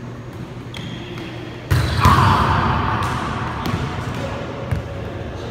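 A volleyball is struck and smacks into the hardwood gym floor. There are two sharp smacks about a third of a second apart nearly two seconds in, which ring on in the gym's echo, then a few lighter thuds.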